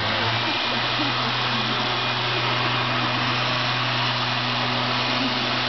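Small petrol engine of a handheld power tool running at a steady speed, holding one constant note with a hiss above it, settling about half a second in.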